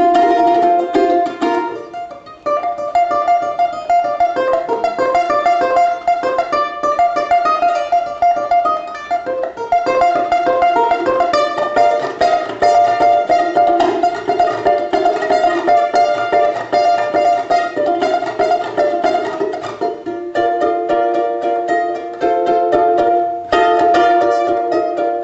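Background music led by a fast-picked plucked string instrument, with quick runs of notes and a short dip about two seconds in.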